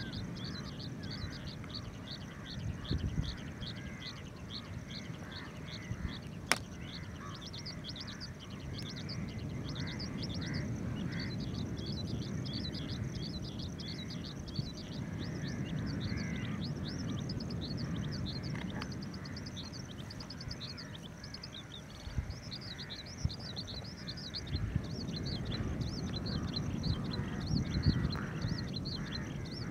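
Oriental skylark calling in a long, unbroken stream of rapid high notes, over a steady low rumble. There is a single sharp click about six seconds in.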